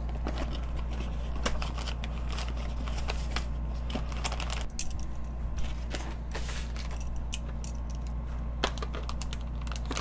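Scattered light clicks, taps and rustles of a small cardboard box being opened and a circuit board in a crinkly anti-static bag being taken out, over a steady low hum.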